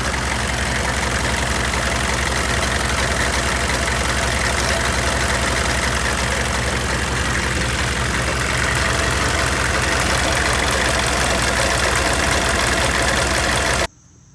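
GM 6.5-litre V8 diesel engine idling with a rapid clanking from the front of the engine: the crankshaft pulley slapping around, a noise the owner had long taken for the power steering pump. The sound cuts off suddenly near the end.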